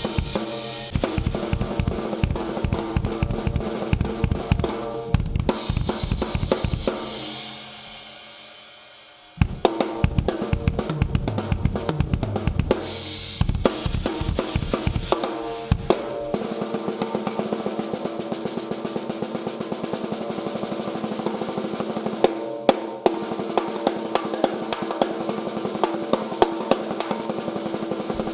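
Drum kit played hard, with a Mapex Hydro 13x7-inch snare, bass drum and cymbals, in a slightly echoey room. About seven seconds in a crash rings and fades almost to nothing, then playing resumes. After about sixteen seconds the bass drum drops out and a lighter, even groove carries on.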